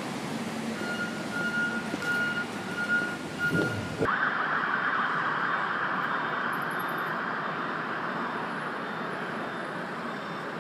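City street traffic, with cars passing close by and a faint high steady tone over the first few seconds. About four seconds in, the sound cuts abruptly to a steady, even wash of more distant traffic noise.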